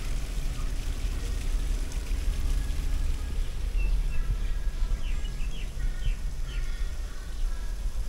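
Outdoor ambience with a steady low rumble, typical of wind on the microphone. Through the middle there are a few short, high, chirping calls, typical of birds.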